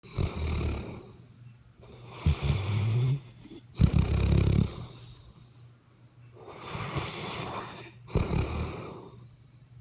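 Snoring: a run of about five loud, low, rattling snores a second or two apart, with quieter breathy exhales between them.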